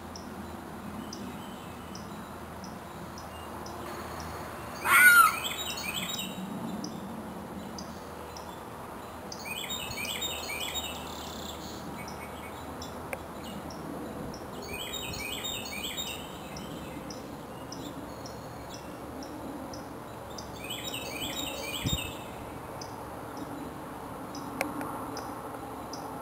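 Woodland birdsong: a bird repeats a short phrase of quick, high, down-slurred notes every five or six seconds over a faint, evenly repeating high ticking. About five seconds in, a single loud, brief shriek stands out above everything else.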